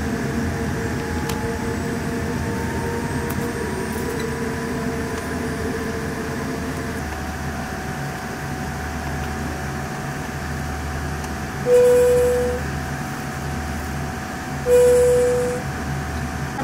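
Steady hum of an airliner cabin while taxiing: engine and air-conditioning noise with a faint steady whine. Near the end, two short single-tone chimes about three seconds apart stand out as the loudest sounds.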